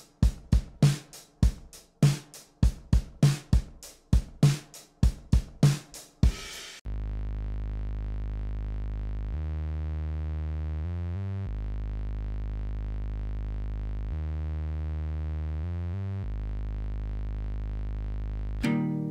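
A multitracked drum kit playing a steady beat of kick, snare and cymbal hits. About seven seconds in the drums stop and a Moog synth bass plays long sustained low notes that change pitch a few times. Just before the end a guitar comes in.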